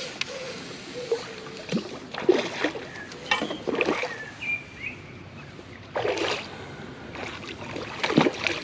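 Hooked carp splashing and thrashing at the water's surface in several short bursts as it is played toward the landing net.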